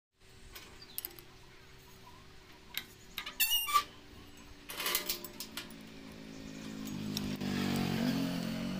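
A few sharp metal clinks and a short scrape as a steel rod is fitted into and bent around a ball-bearing bending jig held in a vise. Background music swells up over the last couple of seconds.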